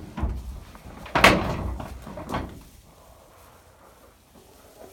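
Chicken coop door being opened, with a loud knock about a second in and a softer one about a second later.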